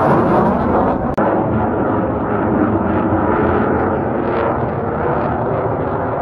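Dassault Rafale fighter jet in flight, the loud, steady noise of its twin M88 turbofan engines, with a sudden momentary dropout about a second in.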